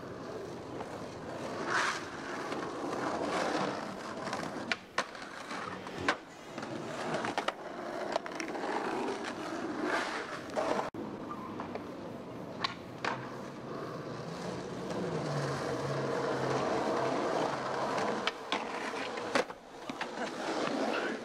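Skateboard wheels rolling over asphalt and concrete, with a dozen or so sharp wooden clacks of the deck popping and landing spread through.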